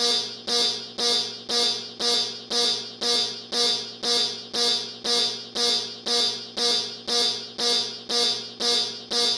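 Emergency alert alarm tone: a harsh electronic buzz at one fixed pitch, pulsing about twice a second, each pulse starting sharply and fading quickly. It stops abruptly at the end.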